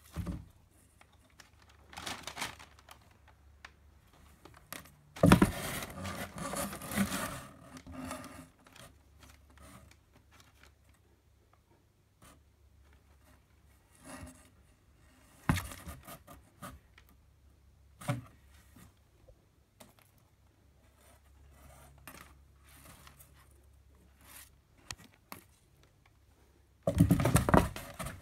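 A cat scrabbling and pouncing inside a cardboard box, its claws scratching and scraping the cardboard in irregular bursts. The loudest bursts come about five seconds in and again near the end, with quiet gaps between.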